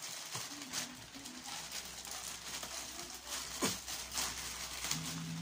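Plastic courier mailer bag rustling and crinkling as it is pulled and torn open by hand, with one sharp crackle about two-thirds of the way through.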